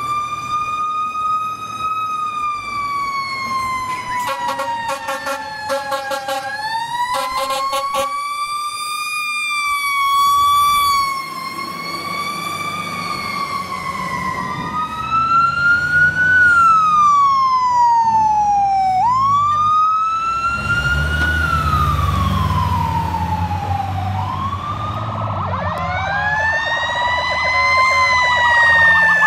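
Fire truck siren wailing in slow rising and falling sweeps, with a run of rapid, chopped horn blasts about four seconds in. A heavy truck engine rumbles loudly past around twenty seconds in, and near the end two sirens wail over each other.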